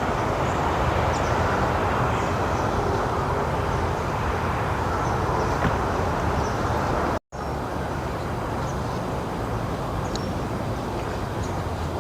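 Steady outdoor background noise with a few faint, short high chirps. It breaks off for a moment about seven seconds in.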